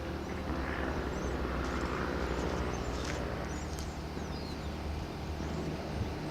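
Komatsu PC228USLC-3 excavator's diesel engine running steadily at a constant speed, with faint bird chirps.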